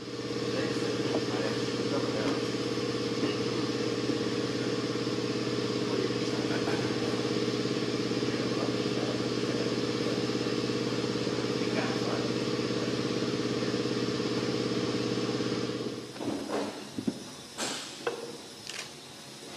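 A steady machine hum with a low, even tone, which cuts off about sixteen seconds in and gives way to scattered clicks and knocks.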